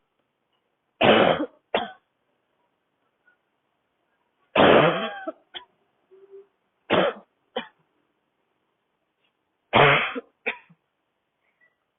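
A woman's dry, barking cough in four separate fits, each a strong cough followed by one or two shorter coughs, with quiet pauses between the fits.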